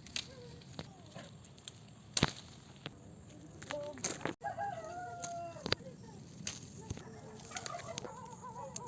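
An animal call: one held, pitched note of about a second roughly halfway through that bends down at the end, with fainter wavering calls near the end and scattered sharp clicks and knocks.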